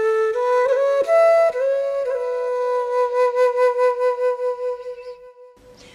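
Background music: a solo flute playing slow, held notes with vibrato, stepping between a few pitches, fading out near the end.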